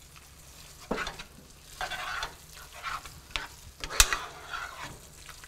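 Metal spoon stirring creamy orzo in a skillet, scraping and clinking against the pan, with one sharp knock about four seconds in, over a faint sizzle from the pan.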